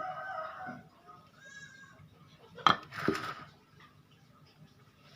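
Domestic animal calls in the background: a pitched call at the start and another shorter one about three seconds in. A single sharp knock, the loudest sound, comes just before the second call, near the middle.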